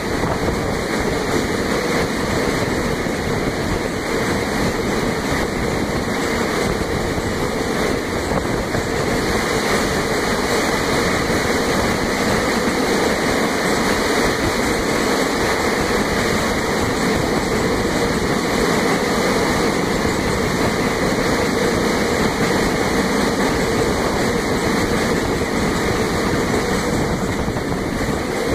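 KCSM train running through a rock tunnel: a steady, loud noise of wheels on rail and machinery, closed in by the tunnel walls.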